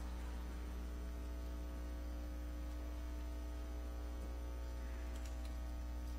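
Steady electrical mains hum, low and unchanging, with a faint brief click about five seconds in.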